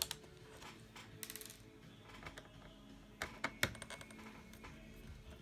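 Small metallic clicks and ticks of a Phillips screwdriver turning out the small screws of a laptop's hard drive cover, with a quick run of clicks about a second in and a few sharper ones past the three-second mark.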